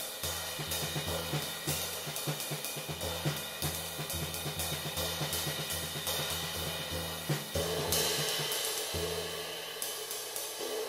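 18-inch ARTCYMBAL ride with two small brass rivets, played in a steady ride pattern with hickory sticks over low drum beats; the rivets add a sizzle to each stroke. About eight seconds in, a louder stroke moves the playing to the 22-inch ARTCYMBAL with one brass rivet, which rings on in a bright wash.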